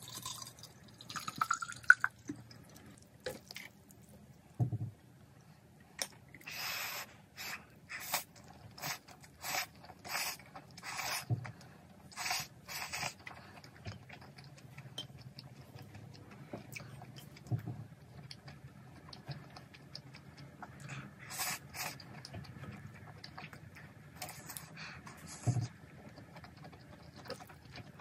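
Water poured from a plastic bottle into a plastic cup, its pitch rising as the cup fills. This is followed by eating sounds: a run of short noisy bursts of slurping and chewing of ramen noodles, about one a second, with a few more near the end.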